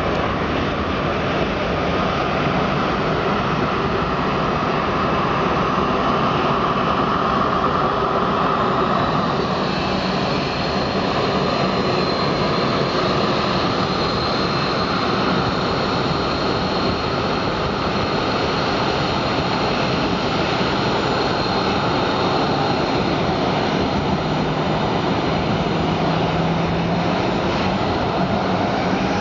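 Airliner jet engines running on the runway and taxiway: a steady loud rush with a high whine that rises about eight to ten seconds in and then holds, as engines spool up.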